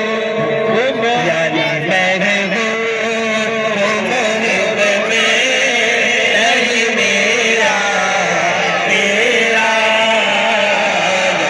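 Naat recited by a man's voice into a microphone in a melodic chant without instruments, with long held notes that waver and glide in pitch.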